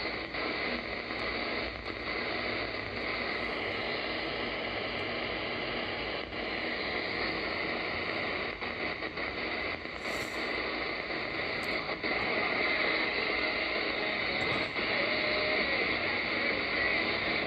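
DSP SDR (Malachite clone) shortwave receiver in AM being tuned across the 49-metre band between stations: a steady hiss of static with nothing above the receiver's 5 kHz filter, faint steady whistles, and a few short gliding heterodyne whistles near the end.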